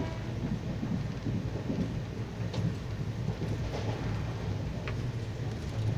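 Steady low rumble of an express train's passenger coach running along the track, with a couple of faint sharp clicks about two and a half and five seconds in.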